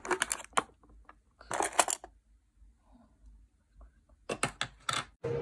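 Plastic makeup compacts and cases clicking and clattering against each other as a hand rummages through a wooden drawer, in three short bursts with quiet gaps between.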